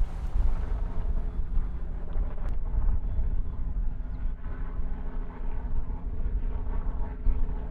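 An engine running steadily with a constant hum, over a low rumble of wind on the microphone.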